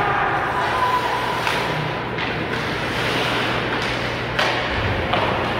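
Ice hockey arena noise: a steady din of crowd and rink sound with several sharp knocks of sticks, puck and boards, and one low thud near the end.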